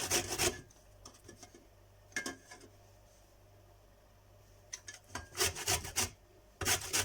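Lemon being rubbed against a grater to take off the yellow zest: short rasping strokes in bursts, with a quiet pause of a few seconds in the middle.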